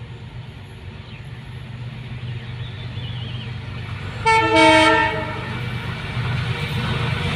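Diesel locomotive approaching, its engine rumble growing steadily louder. About four seconds in it sounds its air horn once, a short blast of several tones at once.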